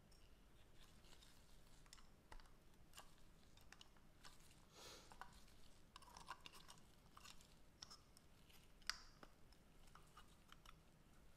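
Faint, scattered small clicks and light scrapes of small parts being handled close by, with one sharper click about nine seconds in.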